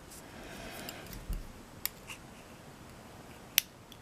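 A few small, sharp metallic clicks and a soft knock from handling a mortise lock cylinder as its top pins are worked out during disassembly; the loudest click comes near the end.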